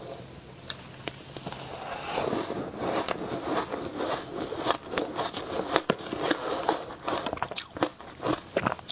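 A mouthful of shaved ice being chewed and crunched, with many sharp crackles that grow denser from about two seconds in. A metal spoon scoops ice in a plastic container.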